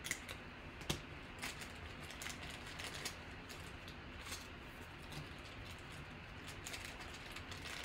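Faint scattered clicks and light taps of trading cards in clear plastic holders being handled and set down on the table, about a dozen in all.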